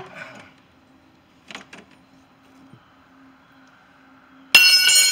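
Wrench work on the A/C receiver-dryer's bracket nut on a John Deere 4440 tractor: a few faint clicks, then about four and a half seconds in a sudden loud, high-pitched ring of metal lasting about half a second. A low steady hum sits underneath.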